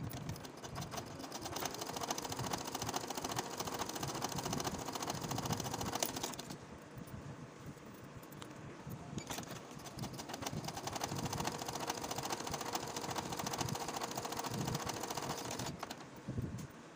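Janome sewing machine stitching a blind hem at speed, the needle ticking rapidly over a steady motor hum. It stops about six and a half seconds in, runs again from about nine seconds, and stops shortly before the end.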